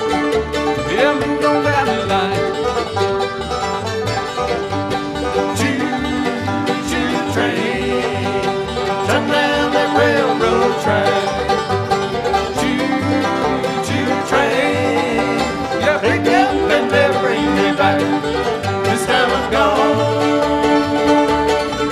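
Bluegrass band playing on fiddle, banjo, acoustic guitar, mandolin and upright bass, with a steady bass beat under bright plucked banjo and guitar notes.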